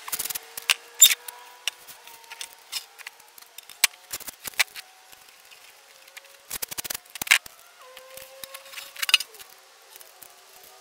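Masking tape being pulled off the roll, torn and pressed onto a plastic go-kart body panel to mask it for paint, with tape rolls set down on a plastic table: a string of sharp clicks and short rips.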